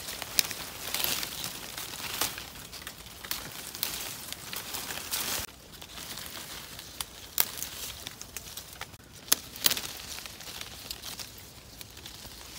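Irregular crinkling and rustling handling noise, with sharp clicks and crackles scattered through it; it gets a little quieter after about five and a half seconds.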